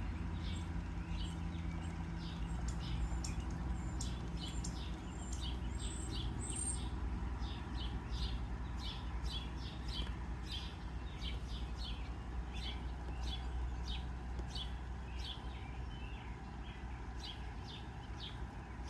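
Small birds chirping repeatedly, with short high chirps coming several a second throughout, over a steady low background rumble.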